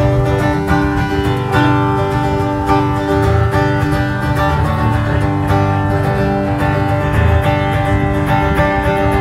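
Music led by strummed acoustic guitar over a bass line and a steady beat.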